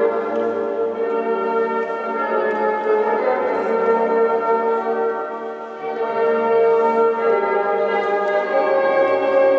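Recorded ceremonial music with long held, bell-like notes playing over PA loudspeakers, dipping briefly about five and a half seconds in.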